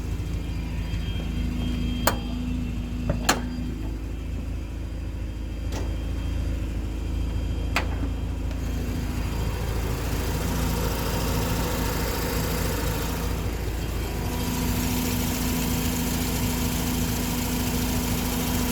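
Mazda RX-8's twin-rotor Renesis rotary engine running, with a ticking that grows with revs. The owner rules out the SSV and spark plugs and suspects the exhaust manifold. Three sharp clicks stand out in the first eight seconds.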